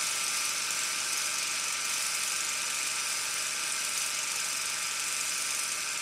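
A steady, even high-pitched hiss with a faint whir in it, unchanging throughout.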